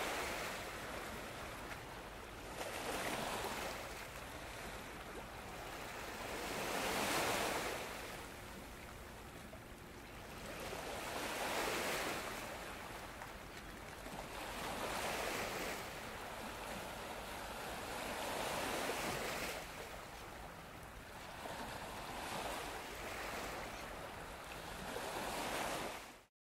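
Waves breaking and washing on the shore, swelling and ebbing every few seconds; the sound cuts off suddenly near the end.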